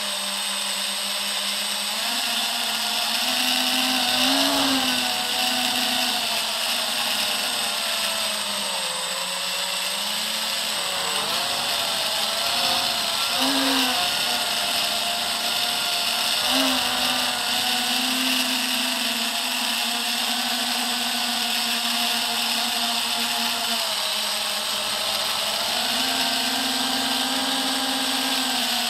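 FPV quadcopter's electric motors and propellers whining, the pitch rising and falling with throttle and swooping sharply a few times, over a steady high rushing hiss.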